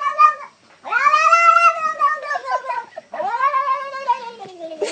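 A cat yowling: a short call, then two long drawn-out yowls, each rising and then sliding down in pitch.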